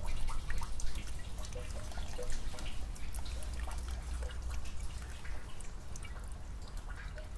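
Rainwater dripping onto leaves and foliage: a dense, irregular scatter of drops over a steady low rumble.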